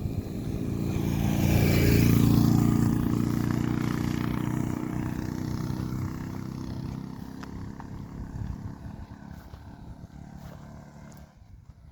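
A motor vehicle's engine passing close by, loudest about two seconds in, then fading away over several seconds as its note drops slightly.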